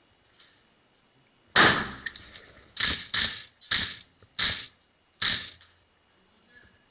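Airsoft electric rifle firing five short bursts, each a brief mechanical rattle of the gearbox cycling, about half a second apart. Just before them comes a louder scuffing noise about a second and a half in.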